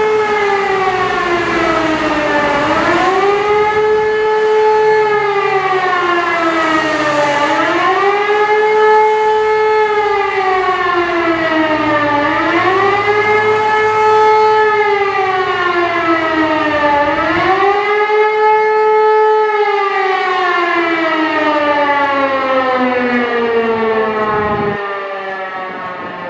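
Civil-defence warning siren sounding the rising-and-falling wail of the German public warning signal during a test alarm, with one swell about every five seconds. Toward the end it stops cycling and its pitch slides slowly down as it winds down.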